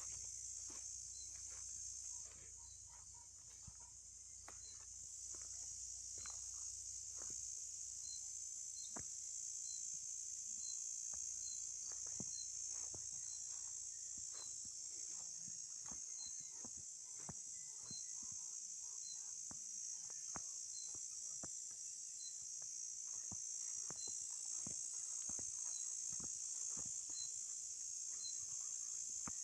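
A steady, high-pitched chorus of insects, with a short faint chirp repeating about every second and a half and scattered faint ticks.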